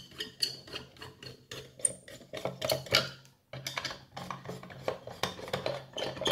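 Small L-shaped star key working the lid screws of a dome CCTV camera: a dense run of small metal clicks and scrapes, with a brief pause about three and a half seconds in.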